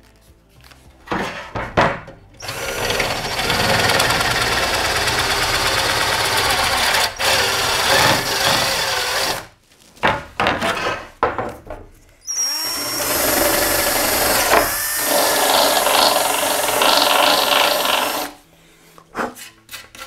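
Cordless drill with an 8 mm bit re-drilling the cable holes of a carbon fibre bike frame to clear paint out of them. It gives a few short bursts, then two long runs of about seven and six seconds with short bursts between; the second run starts with a rising whine.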